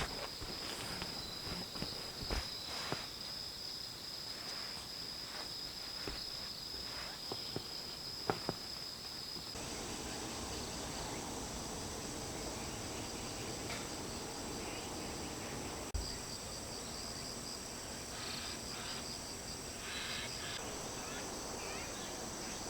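Steady high trilling of insects, with scattered clicks and knocks through the first several seconds. About ten seconds in, the trill abruptly shifts higher and a soft hiss rises beneath it.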